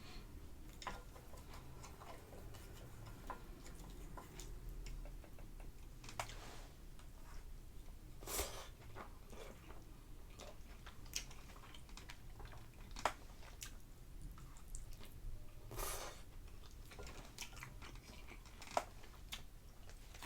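A person chewing and biting instant noodles, fried egg and cucumber, close to the microphone: soft, scattered mouth clicks with a few louder bites about 6, 8 and 16 seconds in.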